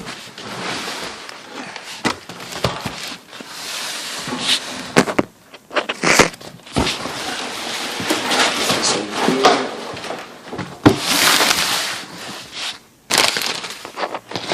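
Cardboard box and packing material being handled and pulled open: irregular rustling, scraping and crinkling, with sharp clicks and knocks scattered throughout.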